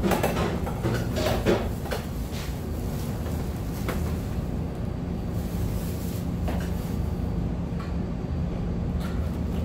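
Crunching and chewing of crispy fried chicken close to the microphone, with a run of sharp crackles in the first couple of seconds and a few single crunches after, over a steady low hum.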